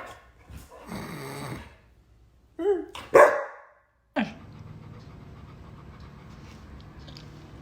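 A dog vocalizing: a rough, growl-like noise about a second in, then a short wavering whine and a loud bark about three seconds in. A steady low hum follows.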